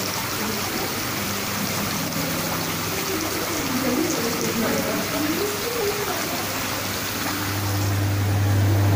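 Aquarium tank water churning and trickling at the surface: a steady rushing hiss, with a low steady hum underneath that grows louder near the end.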